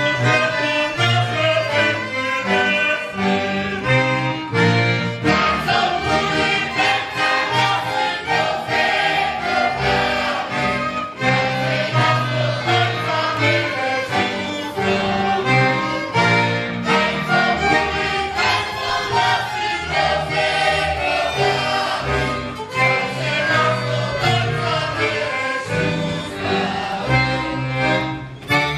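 Polish folk band music: several fiddles and an accordion playing a lively dance tune over a steady, rhythmic low bass pulse.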